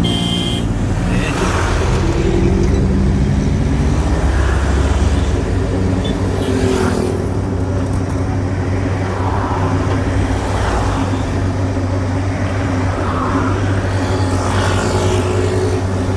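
Komatsu excavator's diesel engine running steadily, its low hum swelling for a few seconds early on, with a couple of brief sharp noises.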